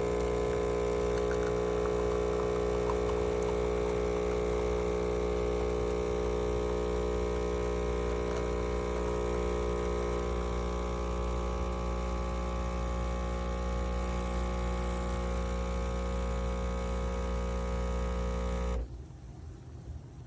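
ILAVIE 20-bar espresso machine's pump humming steadily while it pulls a double shot of espresso, then cutting off suddenly near the end as the shot finishes.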